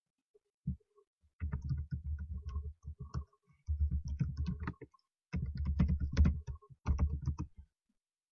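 Computer keyboard being typed on: a single click, then four quick runs of keystrokes with short pauses between them, as an email address and password are entered into a login form.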